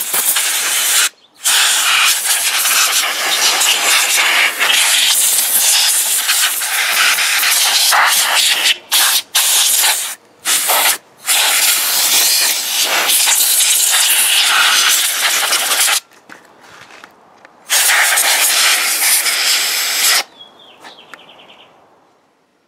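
Canned compressed-air duster spraying through its straw nozzle: a loud, steady hiss in long bursts with a few brief pauses and one longer pause, stopping a couple of seconds before the end.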